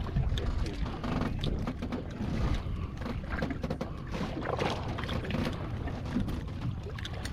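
Steady low rumble of wind and water around an open fishing boat, with a few short knocks and splashes as a hooked bluefish is hand-lined alongside the hull.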